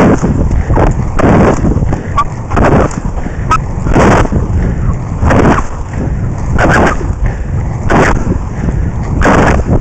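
Wind rushing over the microphone of a moving inline skater, together with skate wheels rumbling on asphalt. The noise surges loudly about every 1.3 seconds, in time with the skating strides.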